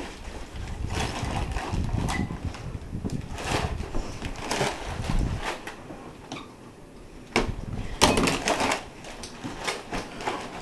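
Rustling and clattering as household objects are handled and stuffed into a cloth bag, with irregular knocks and a sharp cluster of clatter about eight seconds in. A handheld camera being moved about adds a low rumble through the first half.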